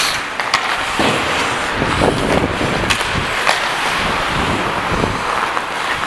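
Hockey skate blades scraping and carving on the ice as the wearer skates hard, with a few sharp clacks of sticks and puck.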